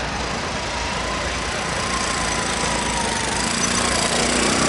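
Diesel-electric freight locomotive running as the train pulls away, a steady engine drone mixed with wind and rolling noise, with a faint high whine wavering through it.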